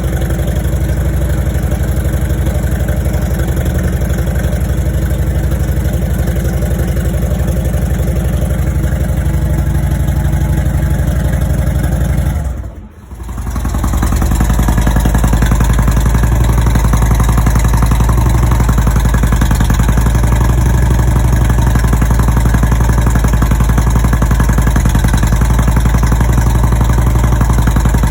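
2008 Harley-Davidson Road Glide's air-cooled Twin Cam 96 V-twin running steadily, mostly at idle, through newly fitted Cobra Neighbor Hater slip-on mufflers with their baffles in. The sound briefly drops away about halfway through, then comes back just as strong.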